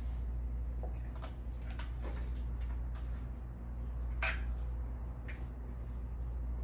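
Scattered soft rustles and small clicks of cut Brussels sprouts and kale being tossed with oil, salt and pepper on a baking pan, with one sharper click about four seconds in. A steady low hum runs underneath.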